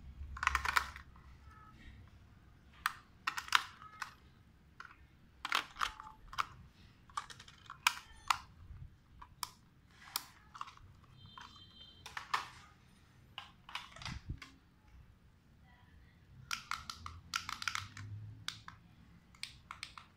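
Irregular plastic clicks, taps and rattles from a toy RC car's body and battery compartment being handled.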